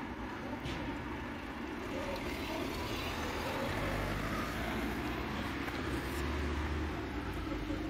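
Steady low engine rumble, like traffic or a motor running nearby, growing a little stronger about halfway through.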